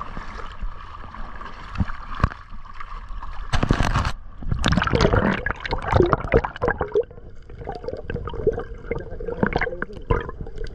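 Sea water sloshing and gurgling as someone moves through it, with a louder stretch of splashing from about three and a half to seven seconds in.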